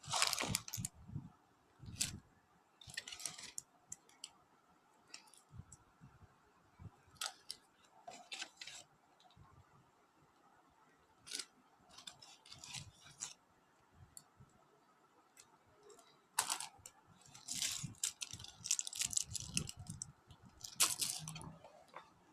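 Irregular rustling, clicks and small clatters of packaging and small items being handled as a gift pack is unpacked, with quiet gaps between them and busiest near the end.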